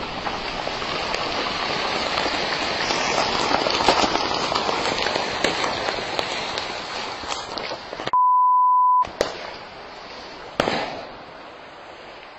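A shower of shell fragments strikes the river: loud, dense crackling of many small impacts and blasts for about eight seconds. Then a one-second censor bleep, followed by two sharp bangs about a second and a half apart.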